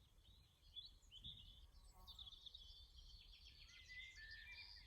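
Faint birdsong, a blackbird singing in phrases.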